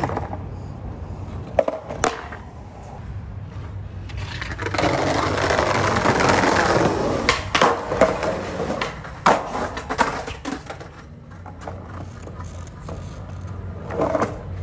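Skateboard wheels rolling, swelling for a few seconds in the middle, with sharp board clacks and landing knocks scattered through, over a steady low hum.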